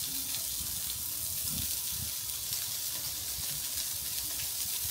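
Food sizzling steadily as it cooks: an even hiss with a few faint low knocks underneath.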